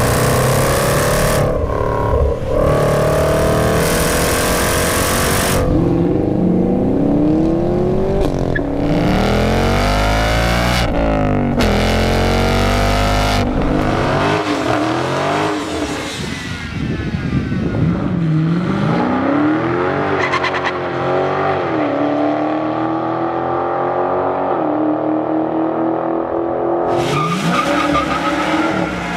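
A Jaguar F-Pace SVR's supercharged 5-litre V8 revving hard, its pitch rising and falling over and over. Then Dodge Challenger engines rev during burnouts, with tyre squeal and hiss starting sharply near the end.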